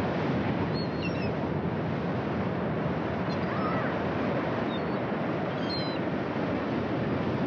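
Steady wash of ocean surf breaking, with a few brief high chirps from small birds.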